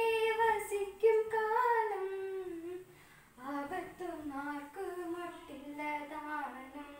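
A child singing solo without accompaniment, holding long notes that slide between pitches, with a short break for breath about three seconds in.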